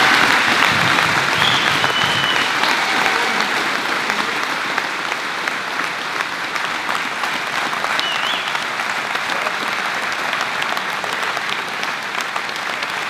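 Large crowd applauding steadily, the clapping slowly dying down.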